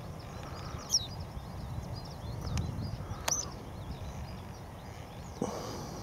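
Western yellow wagtail giving two short, sharp, high call notes about two seconds apart, over a faint steady twittering of other small birds and a low background rumble. A short, lower call sounds near the end.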